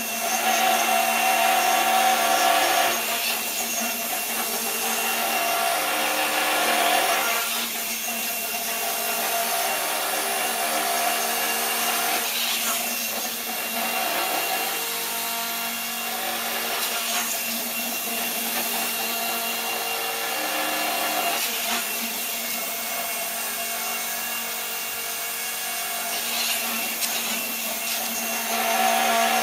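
Motor-driven gyroscopic inertial thruster running with its weighted arms spinning: a steady mechanical hum and whir that swells and eases about every four to five seconds as the machine cycles.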